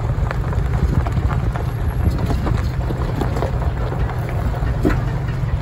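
Vehicle driving slowly over a rough gravel dirt track: a steady low rumble of the running vehicle and wind on the microphone, with scattered small pops and clicks of gravel under the tyres.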